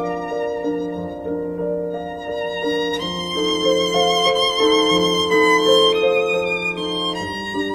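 Slow instrumental background music: held melody notes moving from one pitch to the next over a steady low note.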